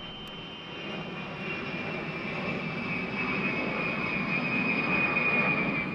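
A large jet aircraft flying overhead: a steady engine rush that grows louder to a peak about five seconds in and then starts to fade, with a high whine that slowly falls in pitch.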